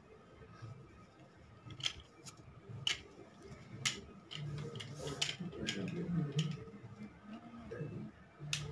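Sharp clicks about a second apart as hands handle macrame cord and small craft tools. About halfway in, a low pitched hum joins.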